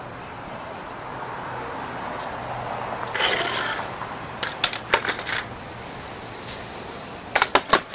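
Skateboard flip tricks on brick pavers: a short rough scrape about three seconds in, then quick clusters of sharp clacks as the board's tail, deck and wheels strike the ground, one around the middle and another near the end.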